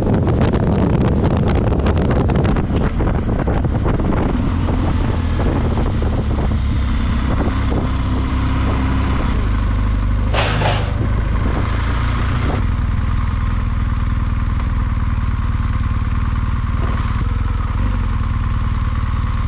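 Motorcycle riding at road speed with wind rushing over the microphone, which dies away after a few seconds as the BMW R1200GS Adventure's boxer-twin engine slows to a low steady run. About ten seconds in there is a short rattle as the tyres roll over a cattle guard.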